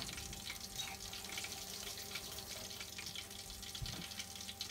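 Battered king prawns deep-frying in a saucepan of hot oil, just dropped in: a steady sizzle with fine crackling.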